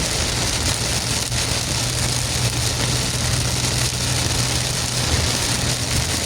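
Heavy rain on a car driving through a downpour: a steady hiss of rain over the low, even hum of the engine and road.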